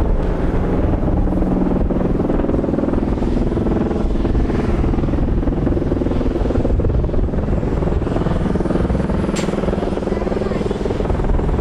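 Bell Boeing MV-22B Osprey tiltrotor in helicopter mode, its twin proprotors and turboshaft engines giving a steady, loud drone with a low hum as it comes down low toward the ground.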